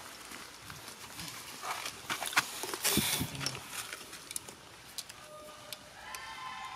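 Macaques moving in dry leaf litter: scattered crackles and rustles, with a louder crunch about three seconds in, then a short high, slightly falling call near the end.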